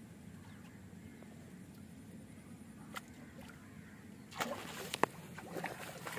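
A hooked fish being pulled in on a fishing line and lifted out of the water: a splash and brief thrashing starting a little past four seconds in, with several sharp clicks. Under it is a low, steady background noise.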